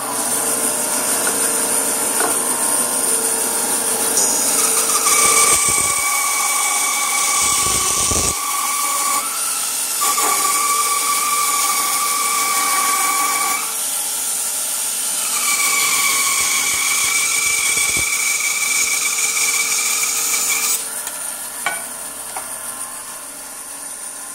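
Laguna 14BX 2.5 hp bandsaw running while resawing a thin veneer slice off a purpleheart block, a high whine coming and going three times as the blade cuts. About 21 seconds in it is switched off and spins down.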